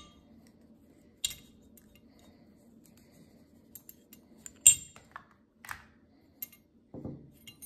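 A handful of light clicks and clinks of hard objects being handled, the loudest a little past halfway, over a faint steady low hum.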